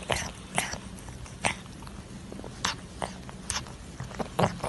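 A kitten chewing and smacking on a piece of food held in a person's fingers: irregular short clicks, roughly one a second, over a low steady hum.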